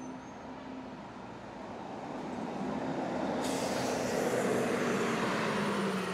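A vehicle passing by: a rumble and hiss that swells over the first few seconds and fades near the end, its engine tone dropping slightly as it goes.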